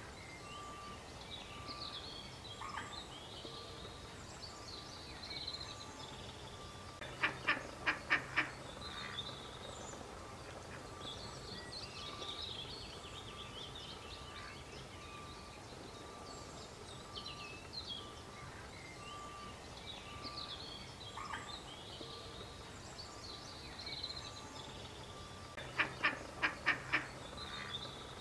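A duck quacking in two quick runs of about five quacks each, one about seven seconds in and one near the end, with small birds chirping faintly throughout.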